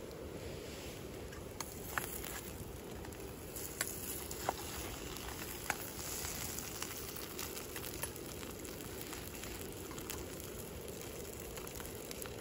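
Hash browns frying in a skillet over a wood campfire: a steady sizzle with the fire crackling and a few sharp pops.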